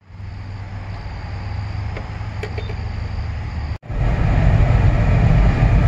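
A steady low hum with light hiss. Then, after an abrupt cut about four seconds in, the louder low rumble of a car's engine and tyres at highway speed, heard from inside the cabin.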